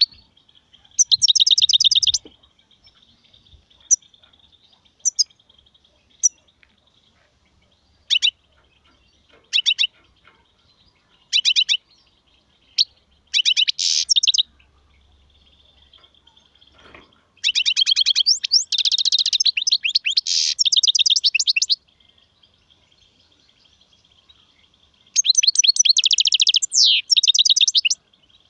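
European goldfinch singing in bursts of rapid, high twittering trills: a short phrase about a second in, scattered single chirps and short phrases, then long phrases from about 17 to 22 seconds in and again near the end. A faint steady high tone runs underneath between phrases.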